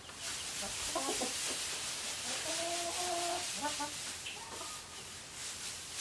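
Chickens calling, several short clucks and one longer, steady call lasting about a second near the middle, over the rustle of loose hay being dropped into a stall.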